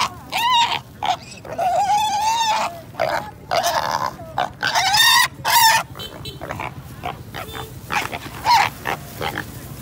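Pig squealing in repeated loud, shrill bursts as it is grabbed and bagged, distress squeals; after about six seconds the squeals turn shorter and fainter.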